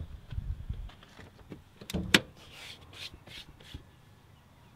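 Handling sounds in a Chevrolet Silverado pickup's cab: rubbing and low bumps, then two sharp clicks about two seconds in and a few fainter clicks after, as the door and under-dash fittings are worked.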